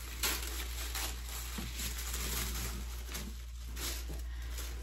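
Tissue paper rustling and crinkling as hands unfold it inside a cardboard shipping box, with several short sharper crinkles.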